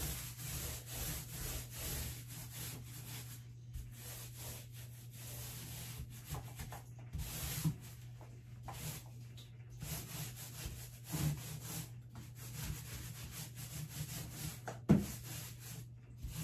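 Paintbrush strokes on wood: a run of scratchy strokes with short pauses between them, and a few light knocks, the loudest near the end. A low steady hum lies underneath.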